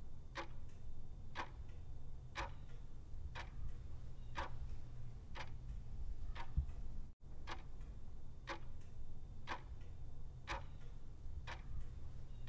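A clock ticking steadily, about two ticks a second with every other tick louder, over a low hum.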